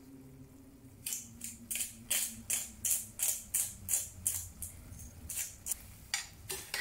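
Seasoning shaken over a skillet: a dry rattling rasp repeated about three times a second, starting about a second in. Near the end a metal spoon starts stirring in the pan.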